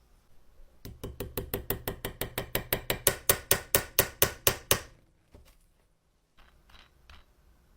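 A fast, even run of sharp metallic taps, about six a second, growing louder and then stopping abruptly, followed by a few light clicks.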